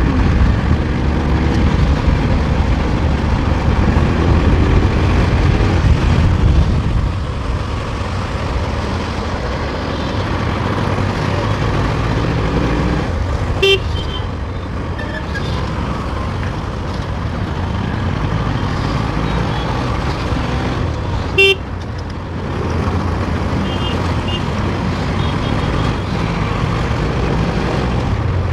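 Bajaj Pulsar NS200's single-cylinder engine running under way in traffic, with a steady low rumble of engine and wind. A vehicle horn toots briefly twice, about halfway through and again about three quarters of the way in.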